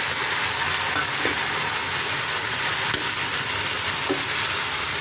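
Chopped brinjal and tomatoes sizzling steadily in oil in a pot while a steel spoon stirs them.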